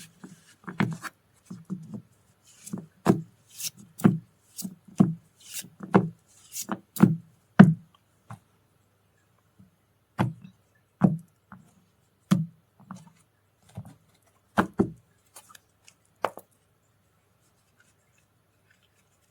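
Tarot cards being laid down and tapped on a table: a series of short soft taps, one or two a second, pausing briefly about halfway and stopping about three seconds before the end.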